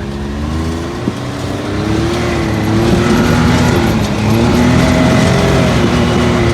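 Vehicle engine running under load, its pitch rising and falling as it revs, getting louder about two seconds in; a single sharp click about a second in.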